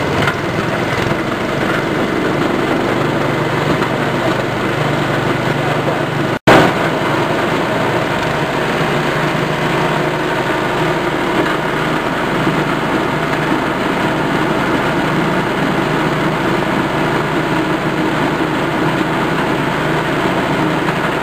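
Small petrol engine driving a rice-husk grinding mill, running steadily under load while husks are fed in and ground to fine bran. The sound cuts out for an instant about six seconds in.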